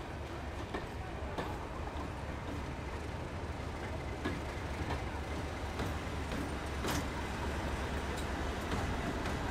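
Railway train running with a steady low rumble, with a few short clanks scattered through it.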